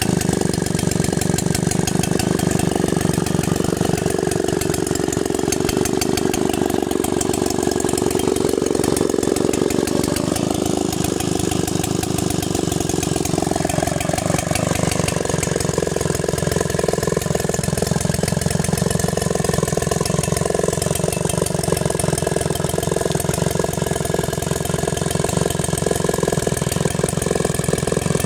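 Stihl 090G gear-drive chainsaw's two-stroke engine running steadily.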